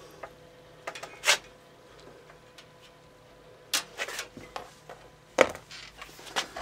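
Handling noise from cables and a foot pedal being connected under a workbench: scattered knocks and rubbing, the loudest about a second in and about five and a half seconds in, over a faint steady tone.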